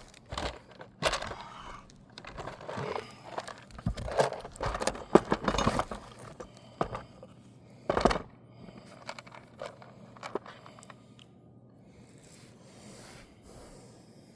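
3-tab asphalt roof shingles scraping and crackling as they are lifted and worked by hand. A single sharp knock comes about eight seconds in, then fainter, scattered handling noise.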